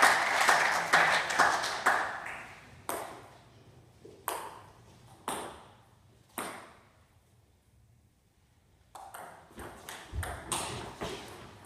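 Table tennis ball clicking off bats and table in doubles play: a flurry of clicks at first, then a few single bounces about a second apart, a short lull, and a fast run of clicks as a new rally starts near the end.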